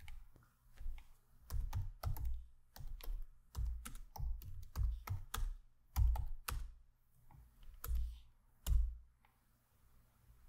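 Typing on a computer keyboard: a run of irregular keystrokes entering a command, stopping about nine seconds in.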